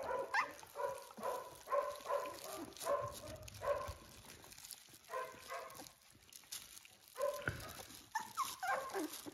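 Newborn puppies whimpering, a run of short high cries about two a second with a lull around the middle: hungry puppies crying for milk.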